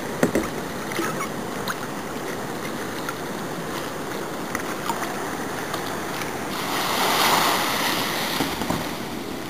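Kayak paddle dipping into calm sea water with small splashes and drips over a steady wash of water. A louder rushing wash of water swells up about seven seconds in and fades again.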